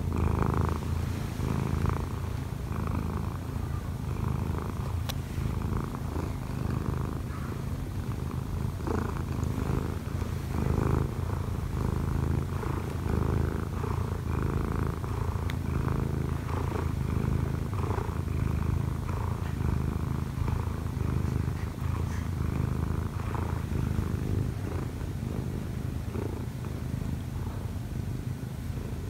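Munchkin cat purring in a steady low rumble close to the microphone as it kneads.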